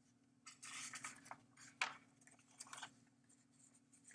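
Faint rustling and a few soft clicks close to the microphone, one sharper click a little under two seconds in, over a low steady hum.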